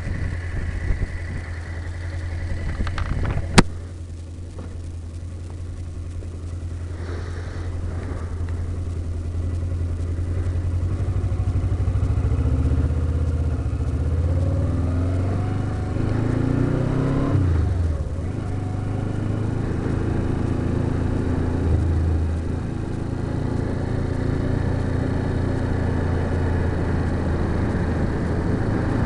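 Motorcycle engine pulling away and accelerating, its pitch rising and falling with gear changes, heard from inside the rider's helmet. A sharp click comes about three and a half seconds in.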